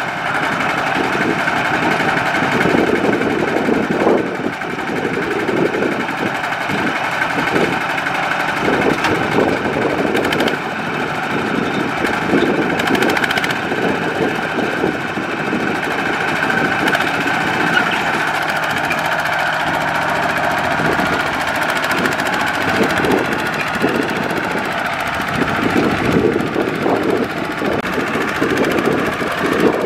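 Single-cylinder Kubota RT120 diesel engine of a two-wheel walking tractor running steadily with a rapid, knocking beat while the tractor is stuck in deep mud, its wheels trying to drive it out.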